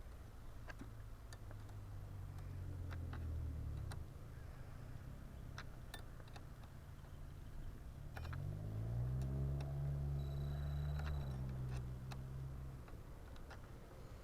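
Scattered light clicks and ticks of plastic parts being handled and fitted under the hood, over a low engine-like hum that rises in pitch about eight seconds in, holds for a few seconds and fades out near the end.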